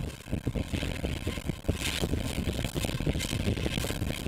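FPV quadcopter's brushless motors spinning their propellers on a bench at a held throttle setting, a steady whir of motors and propeller air.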